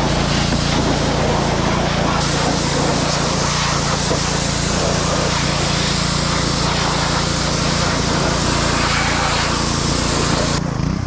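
Pressure washer running steadily: a small engine's constant hum under the hiss of the water spray, which eases off near the end.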